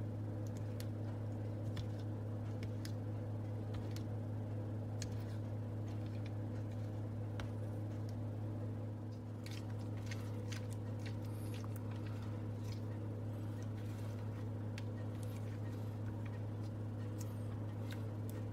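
Slime being squished and stretched by hand, giving scattered small sticky clicks and pops, more of them in the second half, over a steady low electrical hum.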